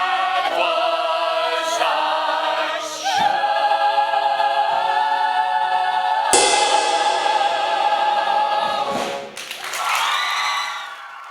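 A chorus of voices with band accompaniment holding the final sustained chords of a stage musical's finale, with a cymbal crash about six seconds in and a last chord near the end that fades out.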